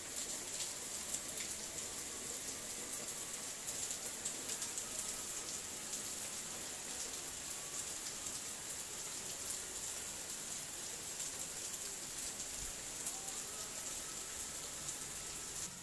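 A steady high hiss with many small ticks scattered through it, much like rain on a surface.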